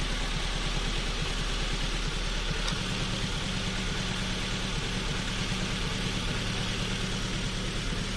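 A 2007 Honda Civic FD's engine idling roughly with a fast, pulsing helicopter-like chop: the sign of a heavy misfire. Its low hum shifts to a steadier tone a little under three seconds in.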